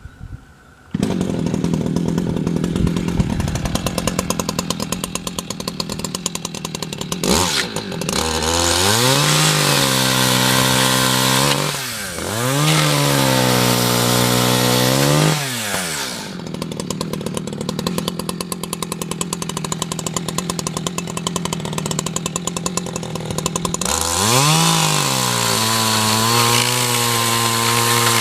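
60cc Echo CS620 two-stroke chainsaw running: idling, then revved up to high speed and held for several seconds with a brief dip, dropping back to idle, and revved up and held again near the end.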